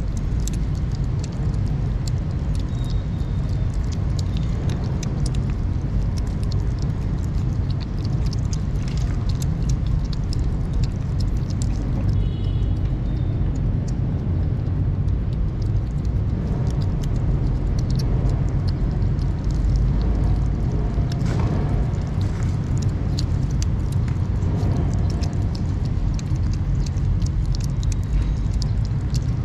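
Several kittens chewing and lapping wet cat food right at the microphone: many small, quick wet clicks and smacks. Beneath them runs a steady low rumble, louder than the eating.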